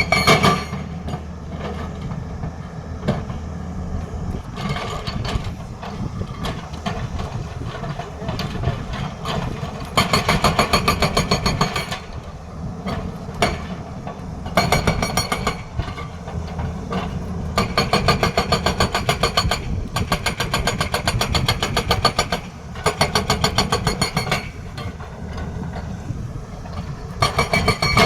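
Tata Hitachi excavator's hydraulic breaker hammering in several bursts of rapid strikes, each one to two seconds long, over the excavator's steady diesel engine drone.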